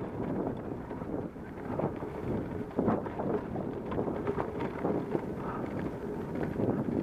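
Mountain bike being ridden fast down a rocky dirt trail: wind rushing over the camera microphone, with tyres crunching on loose gravel and the bike rattling and knocking over rocks.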